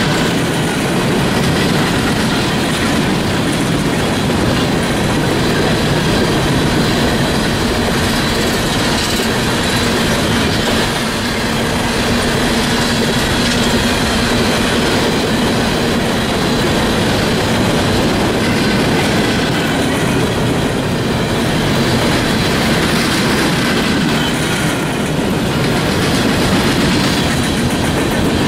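A long train of CSX coal hopper cars rolling past close by at speed: a steady, loud rumble and clickety-clack of steel wheels over the rail joints, with a faint steady whine running through it.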